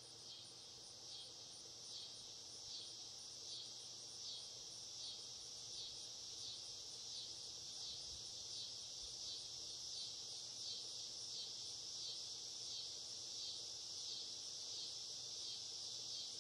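Insects calling in a steady high-pitched chorus, pulsing a little more than once a second and slowly growing louder.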